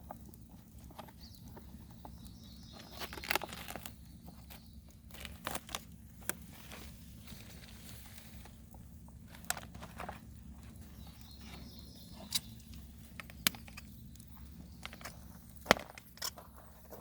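Wood fire crackling, with sharp pops at irregular intervals over a steady low hum.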